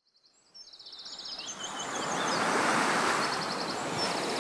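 Waves washing onto a sandy beach, fading in and building to a steady surge, with small birds' rapid high trills and short chirps repeating above it.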